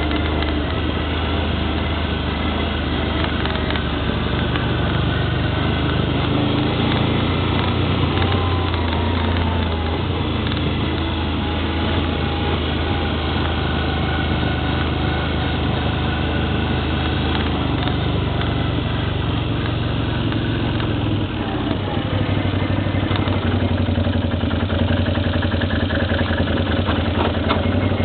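ATV (quad bike) engine running steadily, its note changing a little past three-quarters of the way through.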